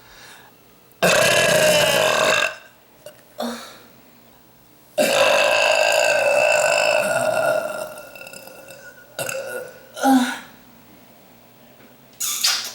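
A woman belching repeatedly, her burps brought on by a carbonated sugar-free Rockstar energy drink. A loud burp comes about a second in, then a long drawn-out one of nearly three seconds starting about five seconds in, with several short smaller burps between and near the end.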